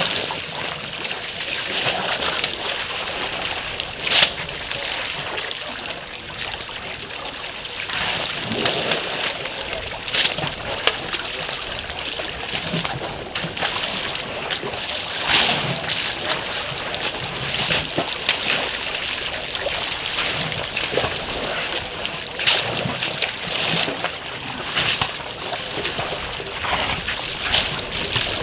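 African elephants splashing and sloshing water in a waterhole as the herd drinks, with irregular splashes every second or few over a steady wash of water noise.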